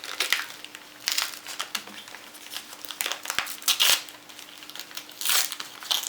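Packaging being unwrapped by hand: irregular crinkling and rustling with a few sharp clicks and crackles.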